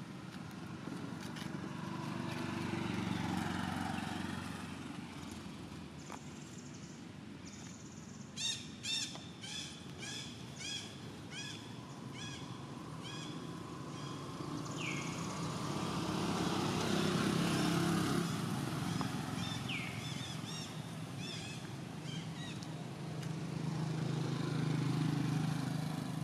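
Motorbikes passing on a nearby road, the low engine sound swelling and fading three times. A bird calls a run of about ten short repeated notes starting about eight seconds in, with more calls around twenty seconds.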